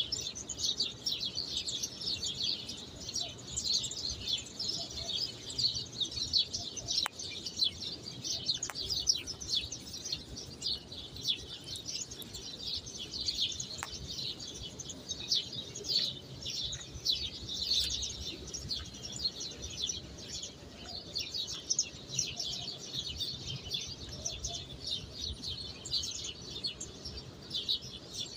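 A dense chorus of small birds chirping nonstop, with many quick high chirps overlapping.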